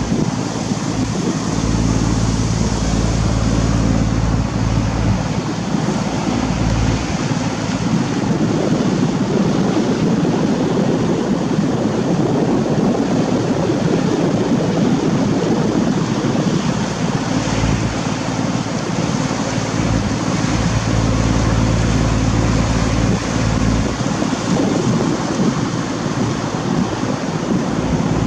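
A boat's engine running steadily while underway, with water washing along the hull and wind buffeting the microphone in gusts.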